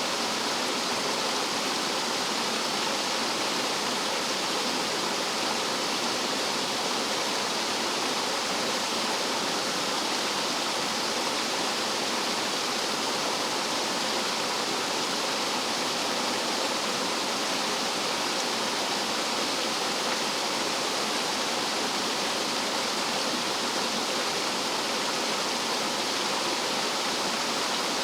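Rough mountain stream water tumbling and falling over rocks like a small waterfall: a steady, unbroken rush.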